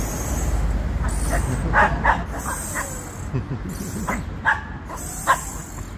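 Small dogs playing rough, giving a few short sharp yips and barks, about two seconds in and again between four and five seconds in, over a steady low rumble.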